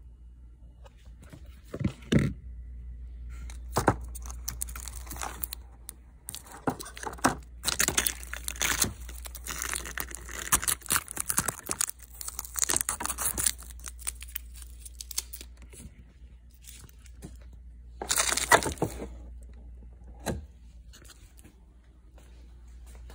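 Plastic freeze-pop sleeves and their cardboard box being handled, crinkling and rustling in irregular bouts with sharp clicks, and a louder burst of crinkling near the end.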